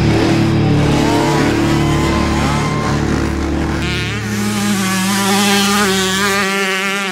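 Dirt bike engine revving hard, its pitch wavering up and down as the throttle is worked while the bike passes close, from about four seconds in. Before that, rock music with a heavy bass line, which drops out near the end.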